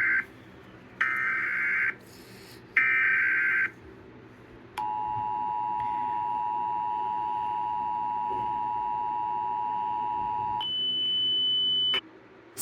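Emergency Alert System header: three buzzing data bursts of about a second each. Then the two-tone attention signal sounds steadily for about six seconds, followed by a higher single tone for over a second that cuts off suddenly.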